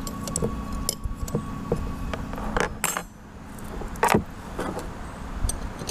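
Metal clinks and taps of a combination wrench snugging the cap bolts on a cast-iron Ford steering box, with two louder metal knocks, about two and a half and four seconds in, as the housing is turned over on the table.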